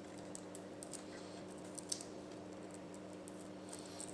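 Faint clicks and scrapes of a laptop RAM module being pushed and seated into its SO-DIMM slot on the motherboard, with one sharper click about two seconds in.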